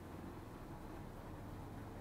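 Honda CB125 motorcycle engine running steadily at low speed while the bike rolls along, a constant low hum under a light noise.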